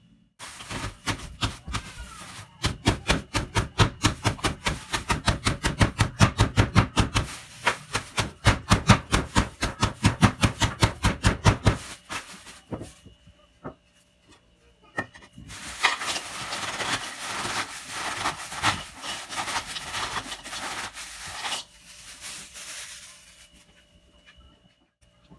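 Oreo cookies being broken up by hand in a bowl: rapid crunching and cracking, about three sharp cracks a second for the first ten seconds or so. Then come a few scattered snaps and a longer spell of dense crunching and rustling that fades out.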